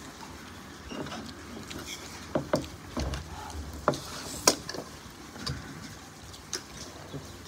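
A man eating noodles with a fork: chewing and mouth sounds, with several short sharp clicks and knocks of the fork and bowl, the loudest about halfway through.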